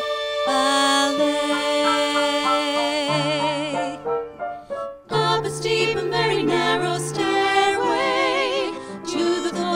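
Women singing long held notes with vibrato, several voices together, over steady instrumental accompaniment, with a brief break a little before the middle.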